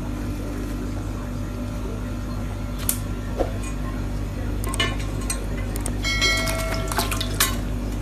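Sharp taps and clinks on a white ceramic baking dish as a rainbow lorikeet climbs onto its rim, a few isolated ticks at first and then a quick cluster, some with a short ceramic ring. A steady electrical hum sits underneath.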